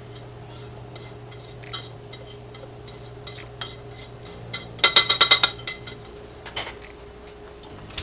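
A utensil knocking and scraping against a stainless steel saucepan as food is emptied out of it. About five seconds in comes a quick run of ringing metal taps on the pan.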